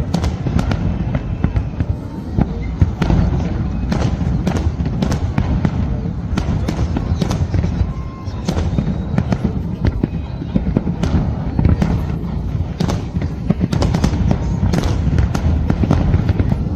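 Large fireworks display: a continuous barrage of overlapping booms from aerial shells, with many sharp cracks in quick succession.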